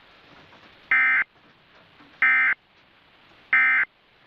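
Emergency Alert System end-of-message (EOM) tones: three short buzzy bursts of SAME digital code, each about a third of a second long and about 1.3 s apart, signalling that the alert message is over.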